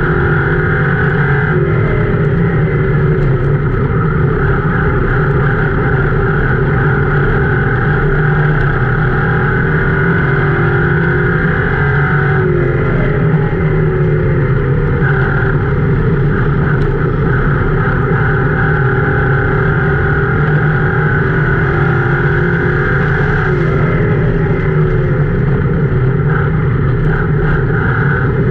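Ford Crown Victoria race car's V8 engine running hard, heard from inside the cockpit over a steady roar of road and dirt noise. Its pitch dips and climbs back three times, about every eleven seconds, as the car goes through the turns.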